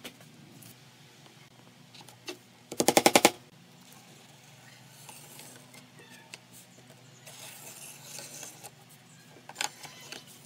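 Steel tape measure retracting with a quick rattle of clicks about three seconds in. Afterwards, a faint scratching of a pen drawing an arc across the pine board, guided by a trammel stick.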